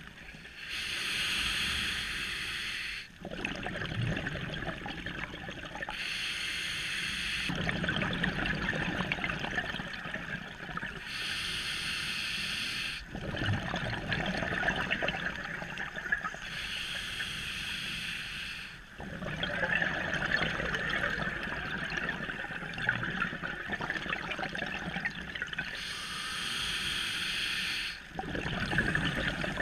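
Scuba diver breathing underwater through a regulator: hissing inhalations alternate with longer spells of bubbling exhaled air, about five breaths in all.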